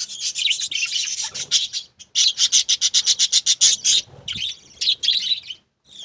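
Budgerigars in a clay-pot nest box chirping loudly and high-pitched, breaking about two seconds in into a fast, even run of about ten chirps a second that lasts nearly two seconds.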